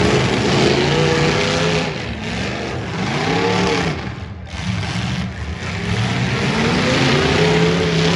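Demolition derby cars' V8 engines revving repeatedly, their pitch rising and falling over loud exhaust noise, with a brief easing about halfway through.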